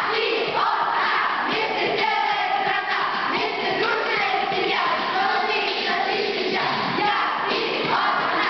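A group of children singing together, with backing music.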